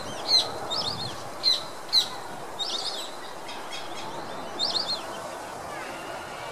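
White-faced whistling ducks calling: scattered sharp single whistles and quick three-note whistled phrases, over steady background noise.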